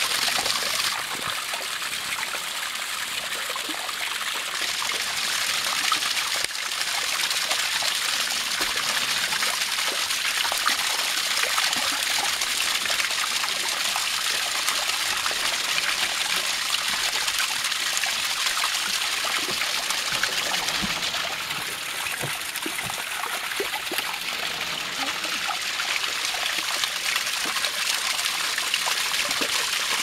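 A small, narrow waterfall about 1.8 m high falling from a clay step and splashing steadily into a shallow pool at its foot: a continuous hissing trickle of water.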